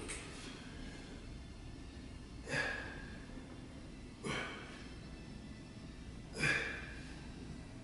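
A man breathing hard in short, sharp breaths while pressing dumbbells overhead. One breath comes at the very start and three more follow about two seconds apart, the last one the loudest.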